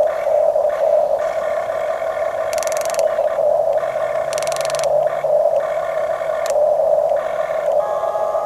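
Electric motors of a Huina radio-controlled construction model whining steadily, with higher whines cutting in and out as functions switch on and off, and two brief gritty rasps about two and a half and four and a half seconds in.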